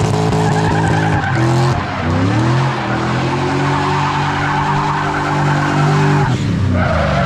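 BMW drifting: the engine is held at high revs while the tyres squeal continuously. The revs dip and climb back about two seconds in, then fall away near the end.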